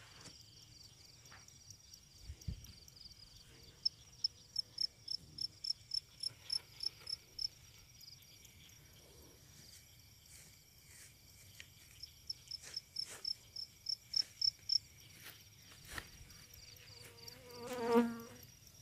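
A field cricket chirping steadily in runs of about three high chirps a second, with pauses between the runs. Near the end a short, low, buzzing tone swells up and stops; it is the loudest sound here.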